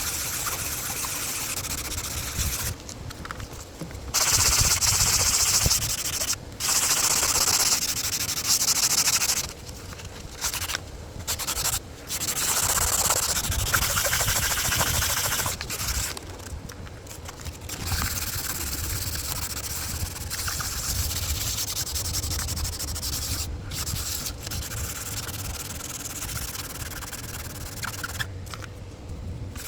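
600-grit sandpaper being rubbed by hand over a cured Solarez resin repair on a carbon kiteboard, a dry scratchy hiss in runs of strokes broken by short pauses; the runs are louder in the first half.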